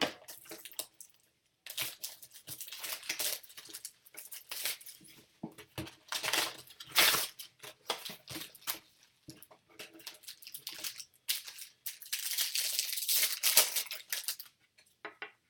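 Trading card pack wrappers being torn open and crinkled by hand, in several irregular bouts of rustling.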